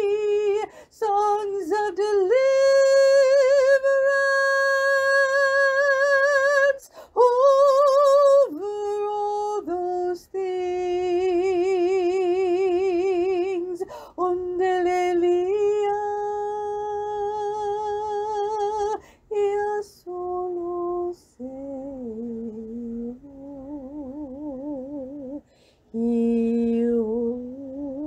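A woman's voice singing without accompaniment, holding long notes with a wavering vibrato between short breaths. From about two-thirds of the way in she sings lower and more softly.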